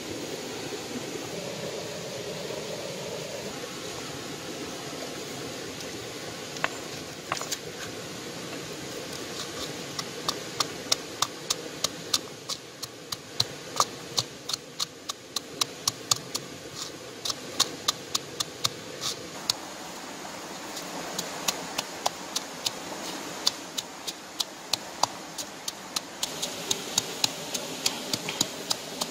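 Stone pestle pounding chillies and garlic in a coconut-shell bowl: sharp knocks about two to three a second, starting some seconds in, over the steady rush of a shallow stream.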